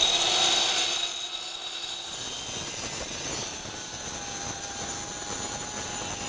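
Electric circular saw with a diamond blade, mounted on a pivoting circle-cutting jig, running and cutting a circular groove into a concrete floor overlay, with its dust-extraction vacuum running. Loudest in the first couple of seconds, then a steady whir.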